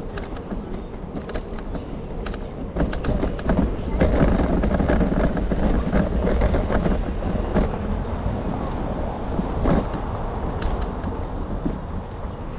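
A vehicle passing on a city street: a low rumble that swells about four seconds in and fades toward the end.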